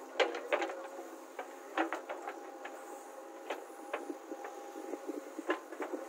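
JCB 3DX backhoe loader's diesel engine running with a steady hum as the backhoe boom lowers the bucket, with a scatter of sharp knocks and clatter through it.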